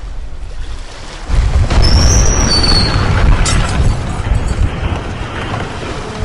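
A loud, deep rumble sets in about a second in and carries on, with a few short high squeals about two seconds in.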